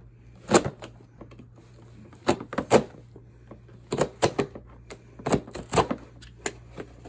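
Cardboard shipping box being cut open with a safety box cutter and pulled apart. It gives irregular sharp clicks, knocks and scrapes in clusters every second or two.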